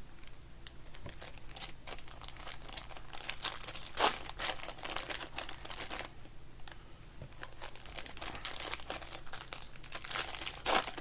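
Foil trading-card pack wrappers being torn open and crinkled in the hands: an irregular run of crackles and rips, with a louder rip about four seconds in and another flurry near the end.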